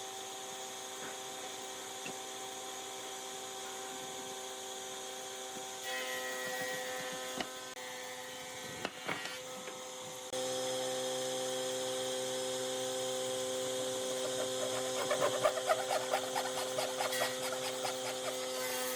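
A power tool's electric motor running steadily, with a few knocks near the middle. About ten seconds in it runs louder, and in the last few seconds it works into wood with an irregular grinding.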